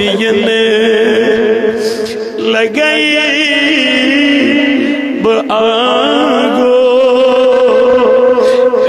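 A man singing a naat, an Islamic devotional song, solo into a microphone in long drawn-out notes. A held note opens it, a quavering run comes about three seconds in, and another long steady note is held through the second half.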